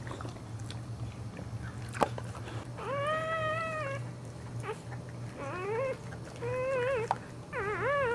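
Dog whining: four high-pitched, meow-like cries that bend up and down in pitch. The first, about three seconds in, is held for about a second; the three shorter ones come in quick succession near the end. A single sharp click comes about two seconds in, over a steady low hum.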